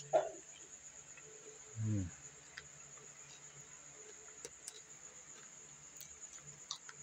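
Steady high-pitched trill of a cricket in the background. Over it come soft clicks of hand-to-mouth eating and a couple of short hummed 'mm' sounds, one near the start and one about two seconds in.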